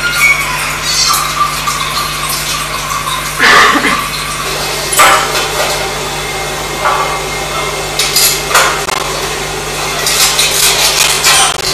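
Knocks and clatter of kitchen work at a counter, over a steady low hum; the sharpest knocks come about three and a half seconds in, at five seconds, at eight and a half, and in a run near the end.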